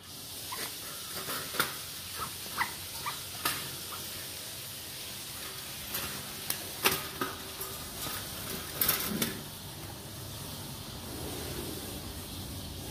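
Scattered sharp clicks and knocks from a wire rat-trap cage holding a trapped white-breasted waterhen, some with a brief metallic ring, over a steady hiss.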